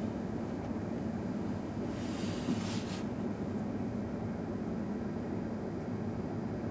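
Steady road and engine noise from a Suzuki Hustler kei car on the move, a low even hum, with a brief high hiss lasting about a second, two seconds in.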